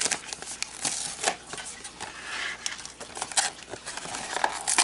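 Hands handling a clear plastic blister tray and paper packaging: a series of light clicks and taps, with a brief rubbing scrape about halfway through.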